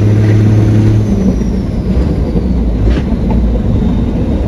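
A 1969 Chevrolet C50 dump truck's engine and road noise, heard from inside the cab while driving. The steady low drone drops in pitch about a second in.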